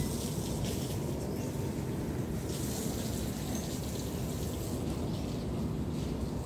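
Steady outdoor background noise, mostly low rumble with a faint hiss above, and a short high chirp about three and a half seconds in.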